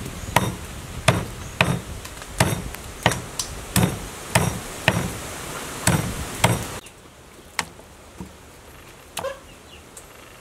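Cleaver chopping through raw duck pieces on a wooden chopping board: a steady run of sharp chops, about one and a half a second, stopping about seven seconds in, then only a couple of faint knocks.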